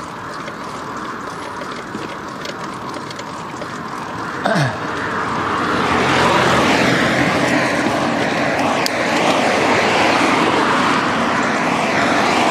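Rushing road and wind noise on a cyclist's camera microphone as traffic passes on the highway, growing louder about halfway through, with a short knock a little after four seconds.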